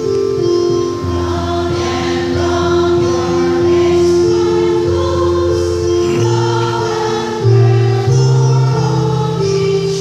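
Church choir of mostly women singing a hymn together, over sustained accompaniment chords with bass notes that change in steps.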